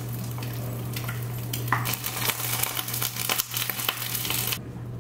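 Eggs frying in a pan: a steady sizzle with a few brief scrapes and clicks from a spatula. The sizzle stops abruptly about four and a half seconds in.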